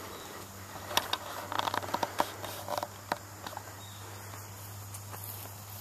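Irregular footsteps crunching on dry dirt, leaves and twigs, a cluster of light crunches and clicks from about one to three and a half seconds in, over a faint steady low hum.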